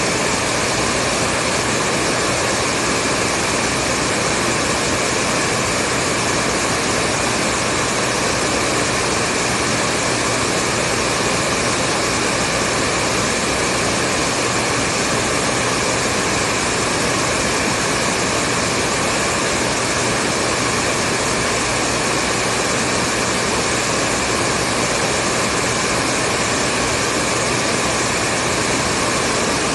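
Hair dryer running continuously, a steady even rush of blown air with a faint motor hum under it.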